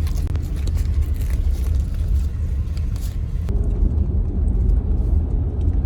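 Steady low rumble of a moving vehicle, with light clicks and rattles over it for the first half.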